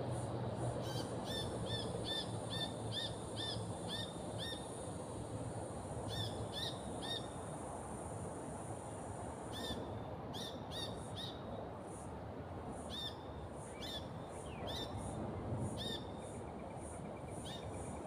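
A bird calling in bouts of short, clear, repeated notes, about two or three a second, with pauses between bouts, over a steady background hiss.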